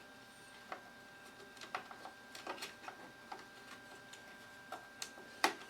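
Faint, irregular clicks and taps of a DDR RAM stick being worked by hand into a memory slot of a Power Mac G4, with one louder click near the end.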